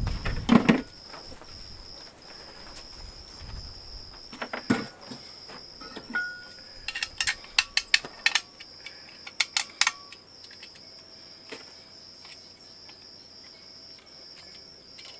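Steady high insect trill of crickets, with sharp metallic clicks and clinks from small steel parts being handled: a loud knock in the first second, then a quick string of clicks a few seconds later.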